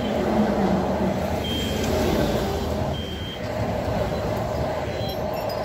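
Highway traffic going by, cars and a pickup truck passing with tyre and engine noise, over a steady whine from the RC excavator's electric motors. Two short high beeps sound about one and a half and three seconds in.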